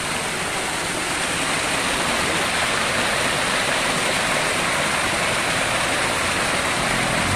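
Small waterfall pouring into a shallow stream pool: a steady, even rush of water.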